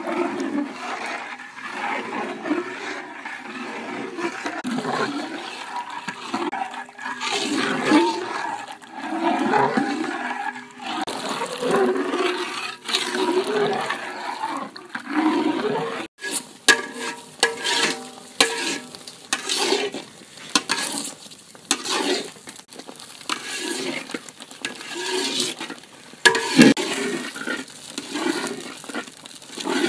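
A metal spoon stirring a thin rice-flour and coconut-milk batter in a metal basin. The batter sloshes and squelches in uneven strokes, and the spoon clicks and scrapes against the bowl, with more clicks in the second half.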